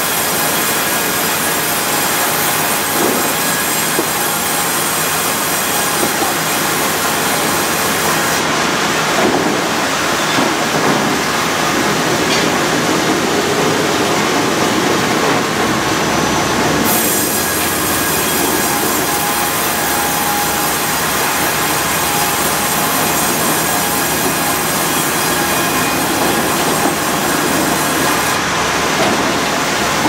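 Hardwood sawmill machinery running steadily: the continuous din of the sawing line and its powered roller conveyors moving oak cants and boards. A high hiss in the mix drops away about eight seconds in and returns some eight seconds later.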